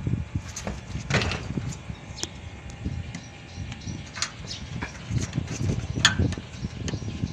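Scattered clicks and light knocks from hands and tools working the wiring and connectors in an air conditioner's electrical panel, over a low rumble of handling noise.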